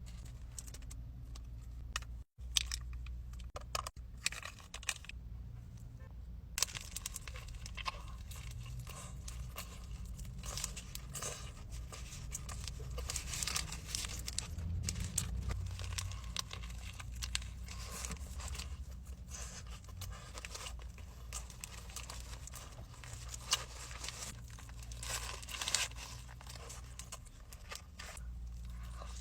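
Crinkling and tearing of a fast-food sandwich wrapper being handled close to the microphone, with many sharp crackles throughout, over a steady low hum.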